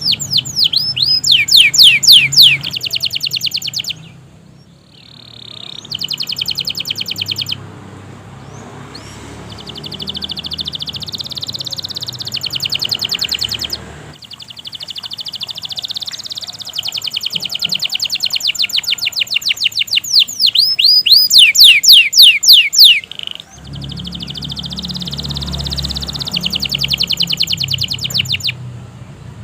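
Domestic canary singing a long, continuous song: fast rolling trills with runs of steeply swooping whistled notes, loudest near the start and about two-thirds through, broken by a couple of short pauses.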